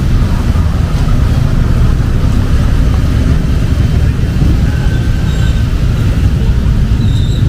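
Loud, steady low rumble of heavy rain and road traffic on a wet city street.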